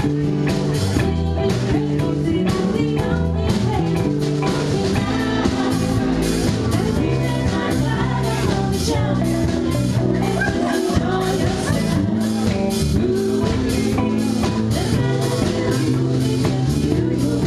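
Live band performing: a woman singing into a microphone over electric guitars and a drum kit keeping a steady beat.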